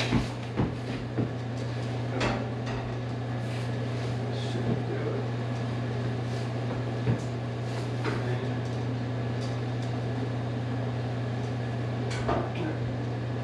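Steady low hum of a window air conditioner, with knocks and clunks as a JET 16-32 drum sander is set down on its metal stand in the first second, then scattered lighter taps and bumps as it is handled.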